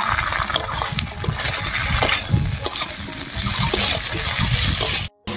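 Potato and pumpkin pieces with cumin and ginger paste sizzling in hot oil in a wok, while a metal spatula stirs and scrapes against the pan in short strokes. The sound cuts out for a moment just before the end.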